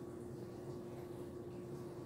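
Steady low hum of room tone with a constant, unchanging tone. The sprinkling of shredded cheese makes no distinct sound.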